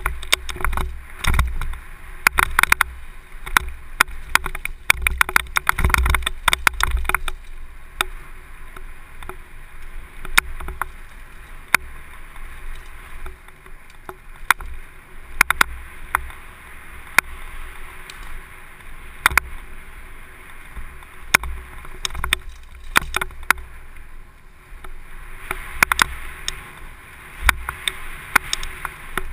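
Downhill mountain bike running fast down a dirt trail: steady wind and tyre noise on a helmet-mounted microphone, with the bike's chain and frame rattling over bumps. The rattling is densest for the first several seconds and again near the end.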